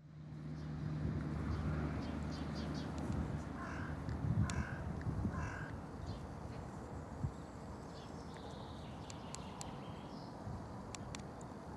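A crow cawing about three times, roughly a second apart, a few seconds in, over a low steady rumble that fades after the first few seconds; faint scattered ticks follow.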